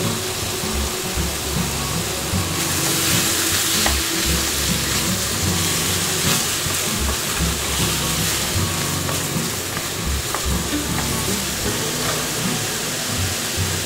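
Beef short rib cubes sizzling in their rendered fat in a frying pan as minced garlic and ginger are fried and stirred with a wooden spatula. The sizzle grows louder about three seconds in.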